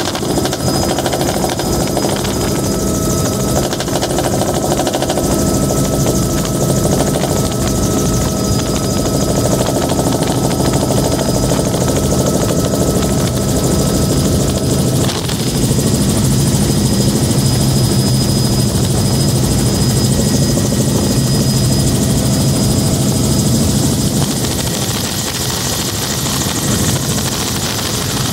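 Bell 206B3 JetRanger helicopter in flight, heard from inside the cabin with the doors off: a steady rotor rumble and wind noise under a constant high turbine whine. About halfway through, the low rotor sound grows deeper and louder.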